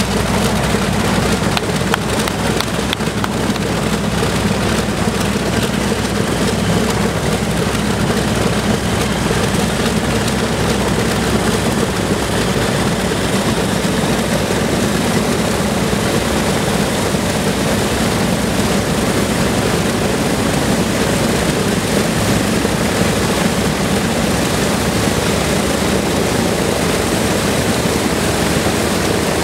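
Lockheed Super Constellation's Wright R-3350 radial piston engines and propellers running steadily on the ground: a loud, even drone.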